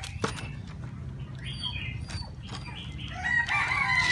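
A rooster crowing once, a long call in the last second and a half, over sharp clicks and knocks from handling puppies in a plastic crate.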